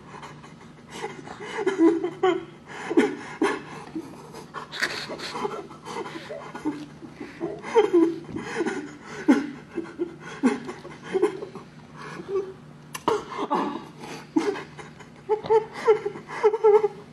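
A person's nonverbal vocal sounds: short, breathy, pitched bursts repeating every fraction of a second, with scattered clicks. A low steady hum runs underneath.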